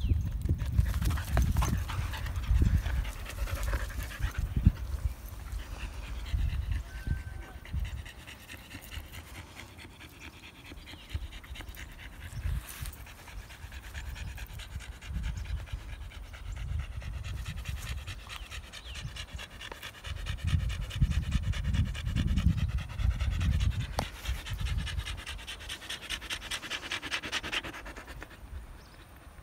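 Husky panting close by in a quick steady rhythm. Low rumbling noise on the microphone in the first several seconds and again about twenty seconds in.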